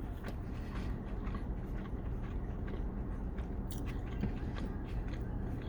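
A person chewing a mouthful of burger with a pickle in it, soft wet chewing with a few small crunchy clicks, over a steady low hum.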